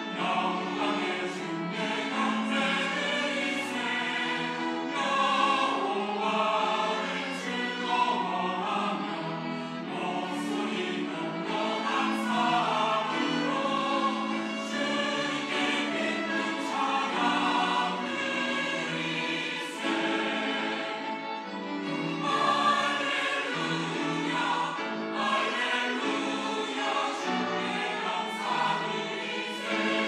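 Mixed church choir of women's and men's voices singing a Sunday anthem in full harmony, the sound continuous.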